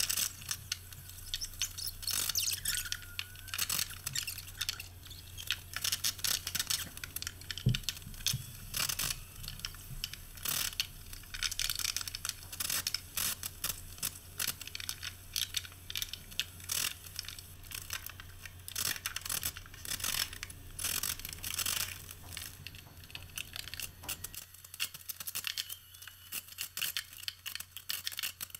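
Sped-up carpentry work sounds: a dense, irregular run of rapid clicks and scrapes over a low steady hum, which drops away near the end.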